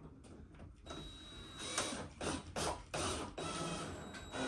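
Hand tool working a fastener on the car's bumper parts: a run of short mechanical rasping strokes, picking up into a steady rhythm of about three a second near the end.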